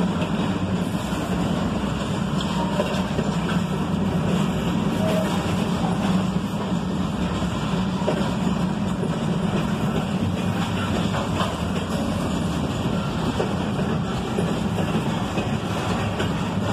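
Double-stack intermodal well cars of a freight train rolling past: a steady rumble of steel wheels on rail, with a few faint clicks.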